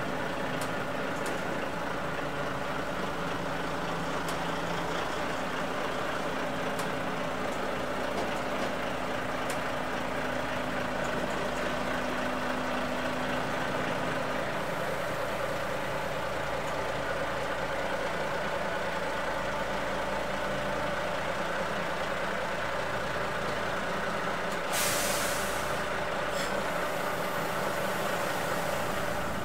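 Volvo heavy-haulage tractor unit's diesel engine running steadily at low speed as it slowly reverses a low-loader trailer. Near the end comes one short, sharp hiss of air released from the air brakes.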